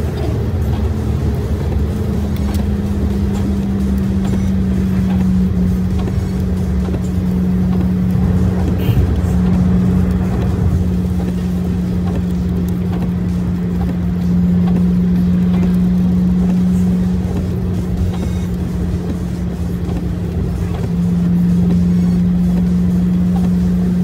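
Driving noise heard inside a vehicle's cab on a rain-wet freeway: a low rumble of engine and tyres with a steady hum that shifts pitch slightly a few times as the speed changes.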